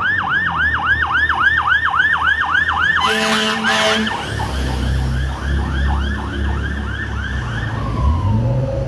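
Fire engine siren on a fast yelp, about four sweeps a second, as the truck passes close by. A horn blasts for about a second in the middle. The engine's low rumble then swells while the siren fades and drops into a slow wail near the end.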